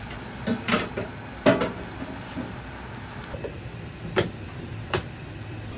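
Kitchen utensils knocking and clinking several times over a steady background hum, the sharpest knock about a second and a half in.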